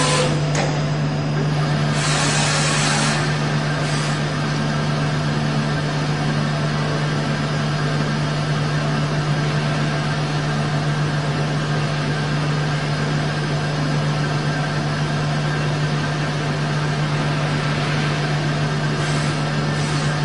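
Okuma MU-500 universal vertical machining center running during a boring operation with a long tool: a steady low machine hum with an even whir, and a brief hiss about two seconds in.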